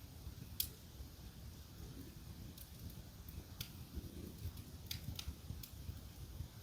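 Wood fire burning in a fireplace: a low, steady rumble with a handful of sharp crackling pops, the loudest under a second in.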